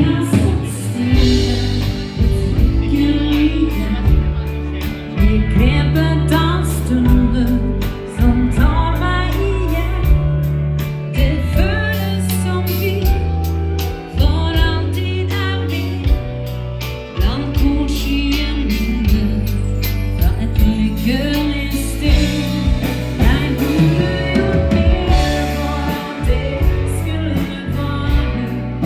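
Dance band playing a song with a singer over a steady drumbeat and bass line.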